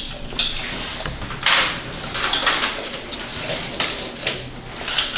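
Light metallic clinks, rattles and scrapes of hand tools and engine parts being handled, irregular and busiest in the middle.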